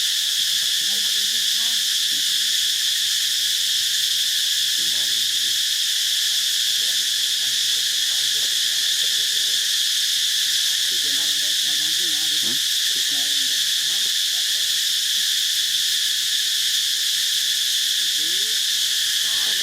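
Steady, unbroken high-pitched insect chorus, with faint low voices now and then beneath it.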